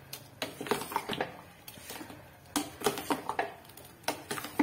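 A spoon stirring thick jackfruit aviyal in a stainless steel pot, with irregular clinks and scrapes against the pot.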